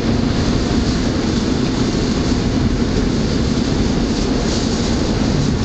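SEPTA Route 10 trolley, a Kawasaki light rail car, running on its rails with a steady rumble.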